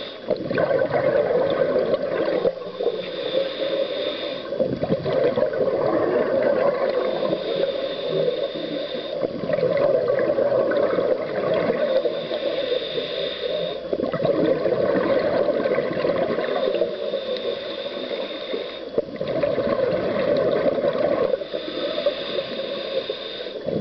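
Scuba regulator breathing underwater: five slow breath cycles, one about every five seconds, each a thin high hissing draw followed by a rush of gurgling exhaled bubbles.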